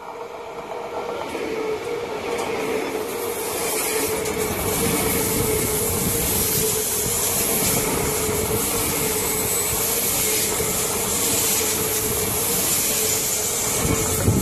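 NS VIRM double-deck electric train running past alongside the platform: a steady rumble and hiss of wheels on rail with a steady hum, growing louder over the first few seconds and then holding loud.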